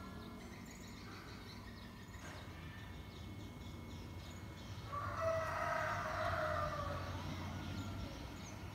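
A rooster crowing once, about five seconds in, for about two seconds, over faint scattered bird chirps.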